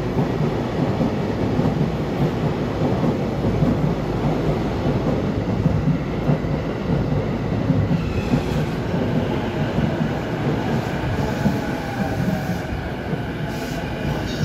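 E235-series electric train rolling into a station platform: a steady rumble of wheels on rail, with faint whining tones appearing over it from about eight seconds in.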